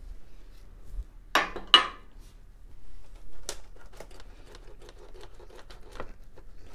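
Hand tools and battery hardware being handled while a car battery's cables are disconnected: two sharp metal clinks about a second and a half in, then a run of small ticks and clicks.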